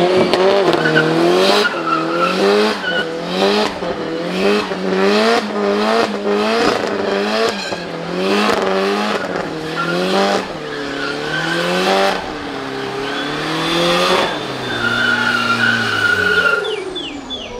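Car burnout: a rear-wheel-drive car's engine revving up and down over and over, about one and a half times a second, while the spinning rear tyres squeal and smoke on the pavement. Near the end the revs are held steadier for a couple of seconds, then drop away.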